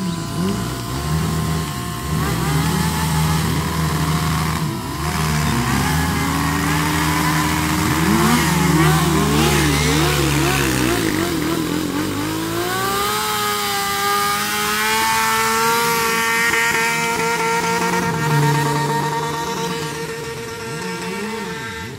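Sport motorcycle engine held at high revs during a burnout, the rear tyre spinning on the asphalt. The revs waver up and down, then climb about twelve seconds in to a steady high note.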